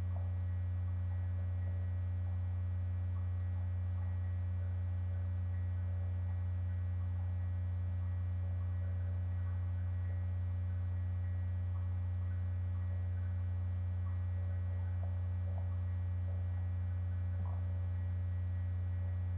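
Steady low electrical hum, one unchanging tone with faint overtones, typical of mains hum picked up by the recording equipment.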